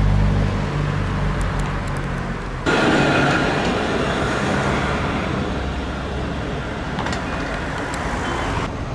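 Road-vehicle noise: a low engine hum, then a sudden louder rushing noise about three seconds in that cuts off abruptly near the end.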